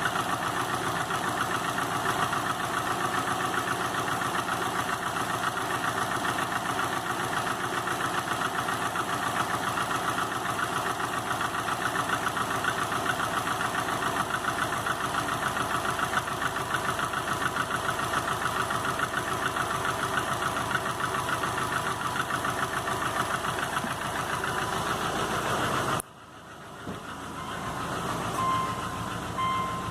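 2005 Subaru Legacy GT's turbocharged 2.5-litre flat-four running with a rapid, steady knock. The engine was just rebuilt on a refurbished block with a new crankshaft and bearings, and the owner has not found the cause; the accessory belt is off and oil pressure is good. The sound stops abruptly near the end, followed by a few short electronic beeps.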